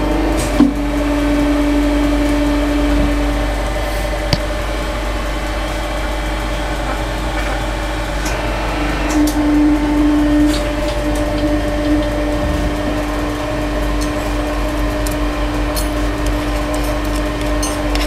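Hydraulic press running with a steady hum while crushing a padlock, with one sharp crack about half a second in and a smaller click a few seconds later.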